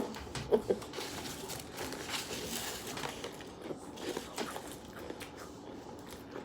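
People crunching and chewing Takis rolled tortilla chips and popcorn, scattered small crackles with a few sharper crunches in the first second.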